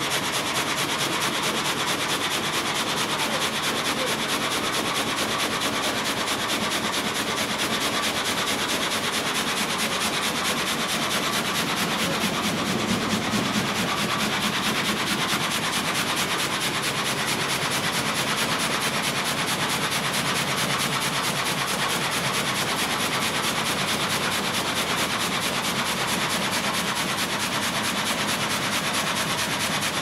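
Frame sawmill (gang saw) cutting a log: the blade frame moves up and down at 285 double strokes a minute while the corrugated feed rollers draw the log through. It makes a steady, unbroken sawing and clattering noise.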